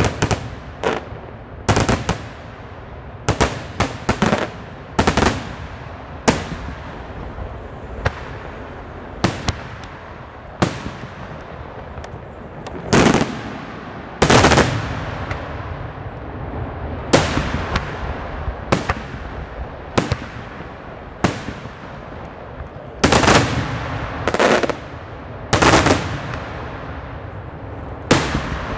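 Daytime fireworks display: aerial shells bursting overhead in sharp bangs, irregularly spaced and sometimes in quick clusters, over a continuous din. The loudest bangs come about halfway through and again in a run towards the end.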